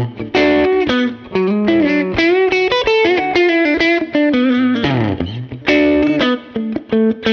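Electric Telecaster with Busch Arctic Wolf Alnico 5 pickups, played through a Muleskinner amp: a continuous single-note lead line with string bends and a quick slide down and back up about five seconds in.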